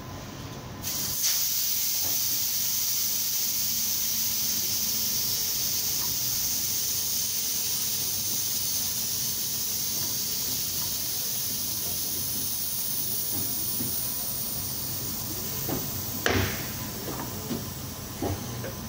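Compressed air rushing through a car tyre's valve on a tyre-changing machine: a loud, steady hiss that starts about a second in. A sharp knock comes near the end, followed by a few lighter knocks.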